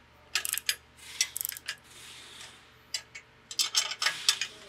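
Small steel lock nuts and washers clinking and ticking against the bolts and the steel bracket as they are fitted by hand, in a few short clusters of quick clicks.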